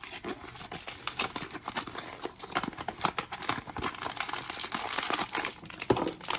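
Blind-box packaging being opened by hand: the wrapper crinkling and tearing in a steady run of irregular crackles and sharp ticks.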